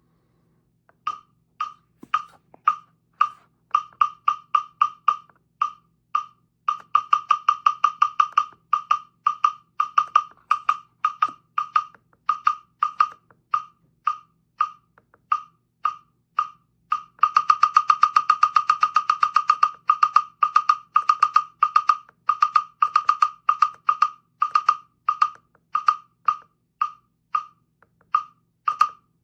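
Donner digital tuner-metronome ticking out short electronic beeps, all at the same pitch. The tempo is changed several times as the beat is set: a slow pulse, then faster, then a rapid run of beeps about two-thirds of the way through, then slower again.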